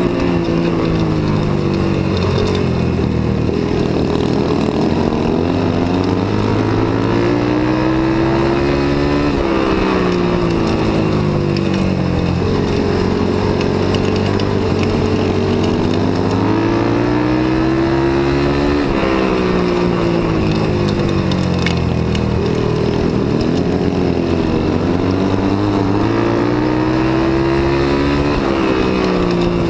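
1978 Yamaha TT500's single-cylinder four-stroke engine running hard under racing throttle, heard from on the bike. Its pitch climbs and then falls back in a repeating cycle roughly every nine seconds as the rider opens and closes the throttle around the track.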